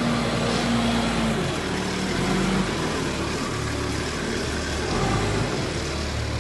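Toyota forklift engine running as the truck drives a loaded oil drum into a shipping container, its note shifting in pitch a couple of times as the engine speed changes.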